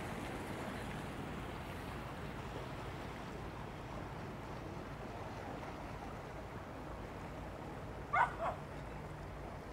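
A dog barks twice in quick succession near the end, over the steady low hum of passing boat engines.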